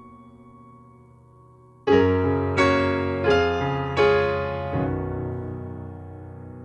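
Slow piano introduction: a held note fades, then about two seconds in a chord is struck and four more follow at an even, unhurried pace, the last one left to ring and fade.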